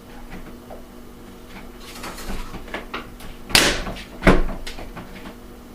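Cellular shade headrail being fitted up into its mounting brackets: some scraping and rustling, then two loud snaps a little past halfway, the second sharper, as the headrail clicks into place.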